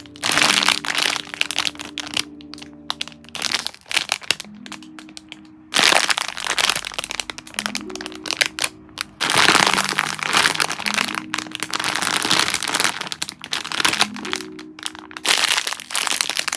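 Clear plastic packaging crinkling and crackling in repeated bursts as squishy foam toys sealed inside are handled and squeezed, over background music.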